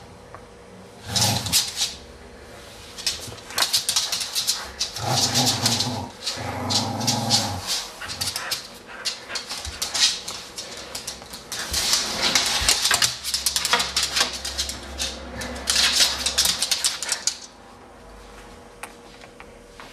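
A pet dog at play, with a steady run of clattering and scuffling noises and two drawn-out low sounds from the dog about five and seven seconds in. It goes quieter near the end.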